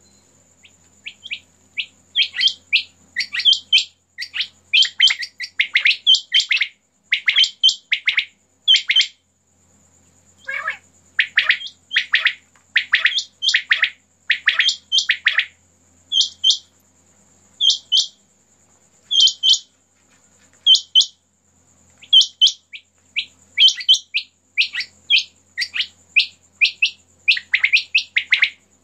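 Caged quail calling over and over: short, sharp notes in quick runs and overlapping bursts, thinning to single evenly spaced notes about every second and a half near the middle. A steady high insect trill runs underneath.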